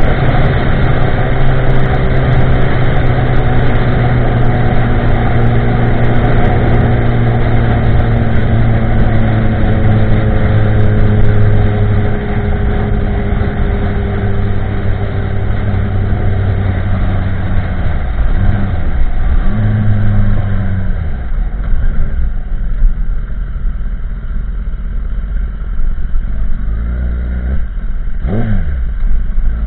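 2016 Kawasaki ZX-10R's inline-four running through a de-cat Pro Race GP-R2 carbon exhaust while riding, engine speed easing down slowly, then dipping and rising twice as it slows. It settles at low revs, with one short rev near the end.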